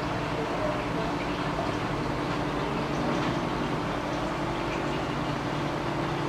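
Aquarium aeration running steadily: air stones bubbling, with a constant low hum from the equipment.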